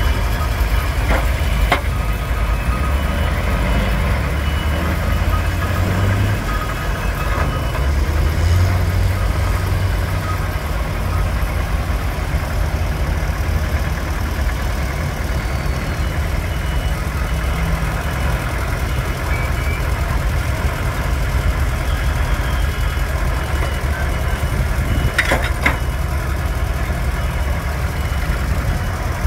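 Fuchs 301 cable excavator's diesel engine running steadily as it digs, its note swelling a couple of times under load. A few sharp clanks about two seconds in and again near the end.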